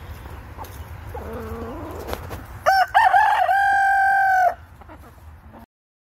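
A rooster crows once, starting about two and a half seconds in and lasting about two seconds, ending on a long held note. Before it there are a few soft low clucks from the chickens.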